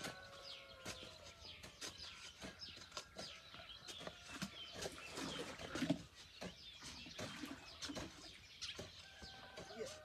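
Scattered knocks and clatter from buckets being carried and handled, louder about five to six seconds in. Birds chirp and chickens call in the background, with a few drawn-out calls near the start and near the end.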